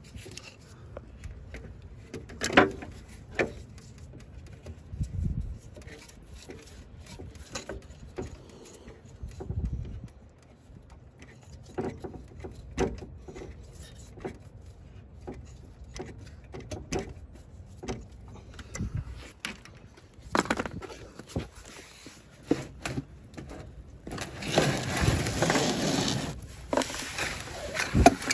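Scattered clicks, taps and knocks of hands and tools working at radiator fittings and hoses under a car, with a longer scraping noise of about two seconds near the end.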